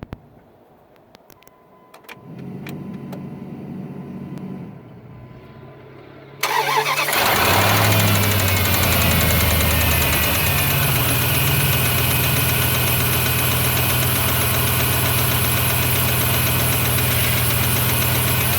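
2002 Dodge Dakota engine starting about six seconds in after a few faint clicks and a low hum, then idling steadily with a noise the owner suspects is lifter noise.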